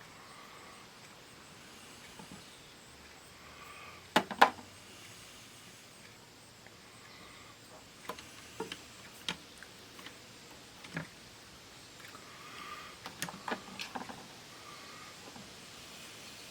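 Scattered clicks and taps of small parts and hand tools being handled on a workbench, with two sharp knocks about four seconds in the loudest, then a few lighter taps and a quick cluster of clicks near the end.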